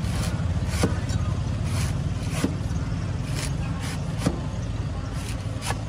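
Cleaver chopping into the husk of a young green coconut, shaving it off in short sharp strokes about one a second, over a steady low rumble.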